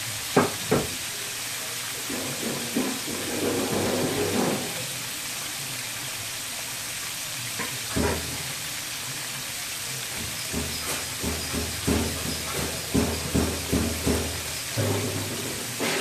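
Chicken tenders deep-frying in a pan of hot oil, a steady sizzling hiss. Two sharp knocks come near the start, and from about ten seconds in a run of drum beats sounds in the background.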